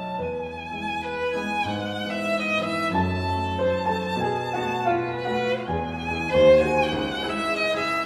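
Instrumental background music: a bowed-string melody over held bass notes that change every couple of seconds.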